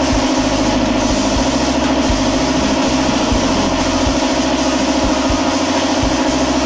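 Air compressor running steadily, feeding a hose-fed spray gun that is spraying sealer onto a concrete floor. The motor has a fast, even pulsing, with a steady hiss over it.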